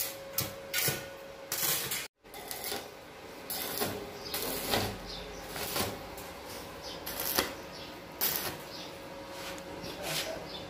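Stick (arc) welding on a light-steel C-channel frame: the arc crackles and sputters in a string of irregular bursts as short tack welds are struck. The sound cuts out completely for a moment about two seconds in.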